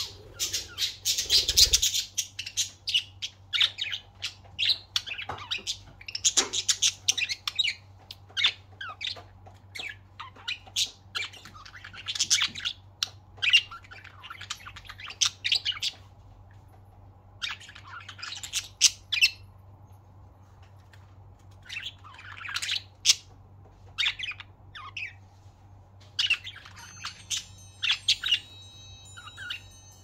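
Budgerigars chirping and chattering in short clusters of high chirps and squawks, busiest in the first couple of seconds, with pauses between, over a low steady hum. Thin high ringing tones come in near the end.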